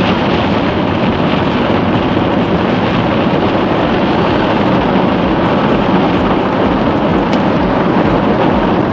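Heavy rain falling on a car's roof and windscreen, heard from inside the moving car as a loud, steady hiss mixed with the car's engine and tyre noise on a wet road.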